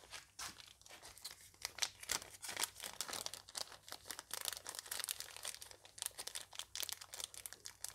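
Plastic parts bag crinkling as it is handled and opened, a dense run of irregular sharp crackles.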